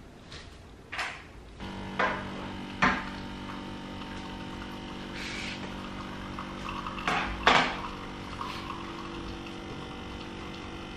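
Capsule espresso machine's pump humming steadily as it brews into a cup, starting a little over a second in. Several sharp clicks and knocks of handling sit over it, the loudest about two-thirds of the way through.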